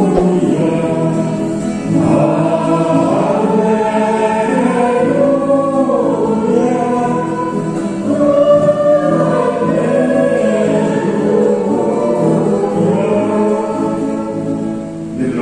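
Church choir singing a sacred hymn, held notes over a steady low accompaniment.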